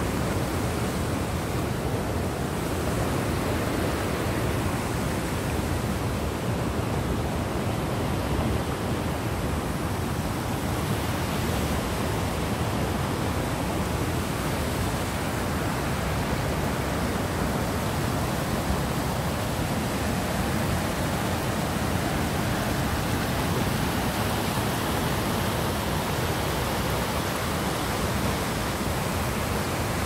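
Shallow mountain-river rapids rushing over rock slabs close to the microphone: a steady, dense rush of water.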